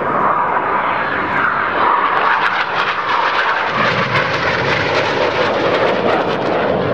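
BAE Hawk T1 jets of the Red Arrows making a low pass, their jet engines a steady loud rushing noise that gets deeper about four seconds in.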